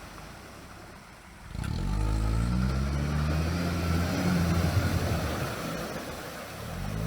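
An all-terrain vehicle's engine under load, coming in strongly about one and a half seconds in as the vehicle drives close by, then easing off toward the end.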